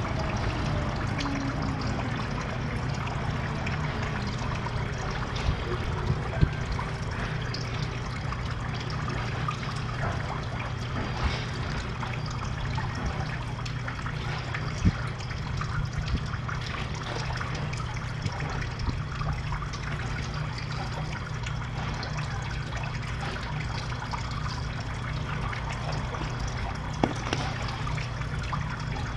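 Water trickling steadily into a garden pond over a low steady hum, with a few short ticks or small splashes here and there.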